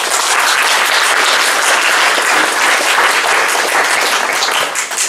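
Audience applauding, a dense patter of many hands clapping that starts suddenly and dies away near the end.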